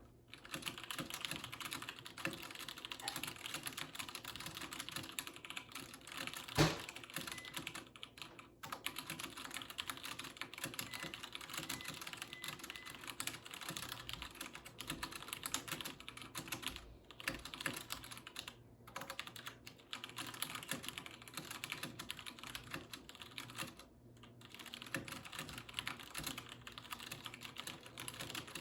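Fast, continuous typing on a 60% mechanical keyboard with brown tactile switches, at about 104 words per minute. The keystrokes stop briefly a few times, and there is one louder knock about six and a half seconds in.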